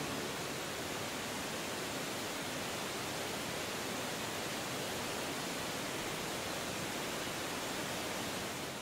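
Waterfall: a large volume of water pouring down steep rock slabs in a steady, even rush.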